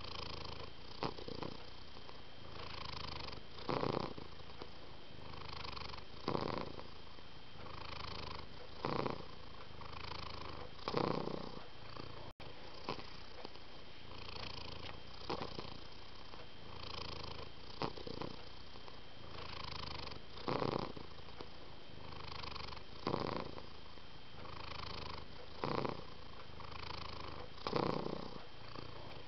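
Domestic cat purring steadily, the purr swelling and easing with each breath, with a stronger surge about every two and a half seconds. The sound drops out for an instant about twelve seconds in.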